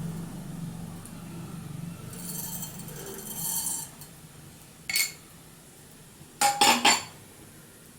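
Kitchen utensils clinking against metal cookware: a rattle and scrape, then one sharp ringing clink about five seconds in and three quick clinks near the end. A low steady hum fades out in the first two seconds.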